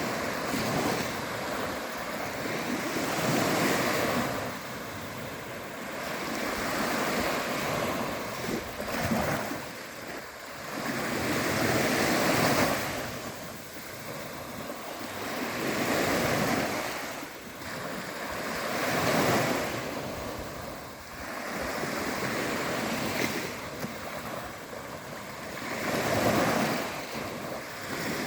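Sea waves breaking and washing on the shore, the surf swelling and fading in a slow rhythm about every three to four seconds.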